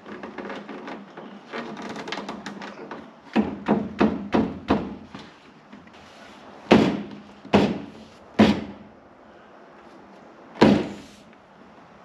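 Hand slaps on a new door panel of a VW Beetle, knocking its retaining clips home into the door: a few seconds of rapid clicking and rustling as the panel is shifted, then a run of four quick knocks, three louder ones, and one more near the end.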